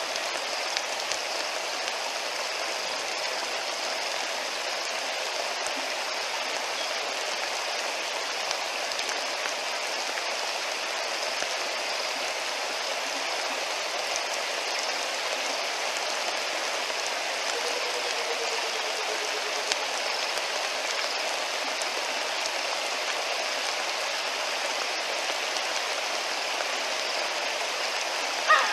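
Steady rain falling on river water, an even hiss that does not let up, with a brief sharp sound right at the end.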